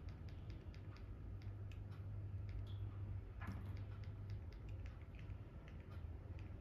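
Faint, irregular small ticking clicks over a low steady hum, with one brief scratchy sound a little past halfway.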